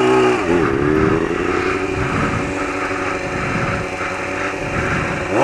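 Motorcycle engine running on a trail ride: the revs drop and climb again in the first second, hold fairly steady through the middle, then rise and fall quickly once more near the end.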